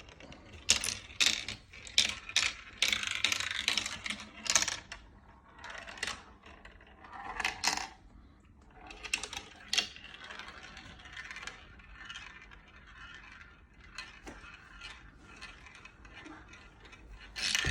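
Marbles clattering and rolling through a marble run. A quick string of sharp clicks in the first few seconds is followed by quieter rattling and rolling with scattered clicks, and a louder clatter near the end.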